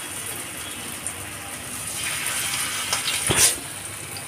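Battered paneer skewers deep-frying in hot oil: a steady sizzle that grows louder about two seconds in, with one sharp tap about three and a half seconds in.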